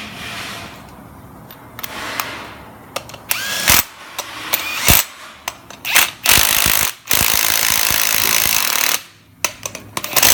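Metal knocks and clanks of tools on a brake hub and rotor being fitted together, then about two seconds of a steady, noisy power-tool run.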